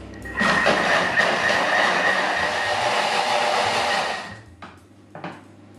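Thermomix blender-cooker blending soaked dates and hot water into a smooth purée at high speed: a loud, steady whirr with a high whine that starts just after the opening and winds down about four seconds in as the machine is stopped.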